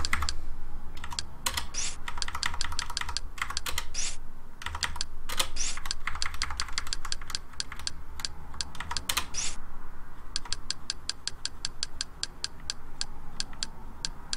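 Computer keyboard keys being pressed to navigate menus: separate clicks at uneven intervals, then a quick, even run of key taps in the last few seconds as a long list is scrolled through.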